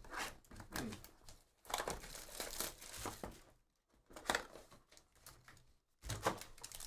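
Foil trading-card packs crinkling as they are handled and pulled out of an opened hobby box, in short irregular rustles with a couple of brief pauses.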